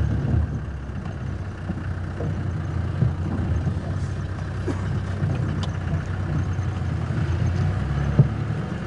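Open safari vehicle's engine running steadily as it drives along a bumpy dirt track, with a few knocks and rattles from the vehicle, the loudest just after 8 seconds in.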